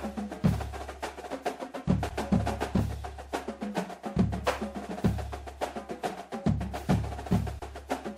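Percussion-driven music soundtrack: deep bass hits about once or twice a second under rapid, sharp clicking percussion.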